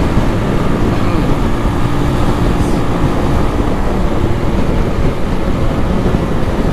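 Motorcycle engine running at a steady road speed, with steady wind rumble on the microphone.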